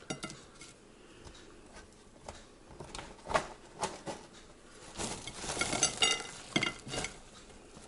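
A metal fork clicks and scrapes against a Ninja air fryer's non-stick basket. About five seconds in, a rattle of crinkle-cut chips and kebab meat slides out of the tipped basket onto a ceramic plate, with light clinks.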